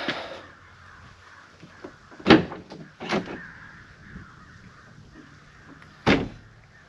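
Ford F-150 pickup tailgate being unlatched and let down, giving three sharp clunks spread over several seconds.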